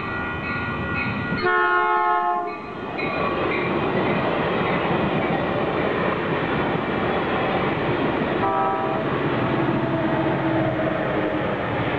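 Caltrain commuter train sounding its horn in a loud chord-like blast of about a second, roughly two seconds in, then rolling through the crossing with a steady rumble and rail clatter. A short horn note comes near nine seconds, and the diesel locomotive's engine drone rises near the end as it passes.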